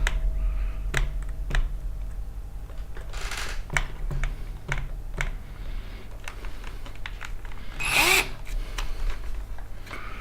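Hands handling small tools and parts while getting ready to drill a hole through a printer's toothed belt. There are scattered light clicks and taps, a short burst of noise about three seconds in, and a louder one about eight seconds in.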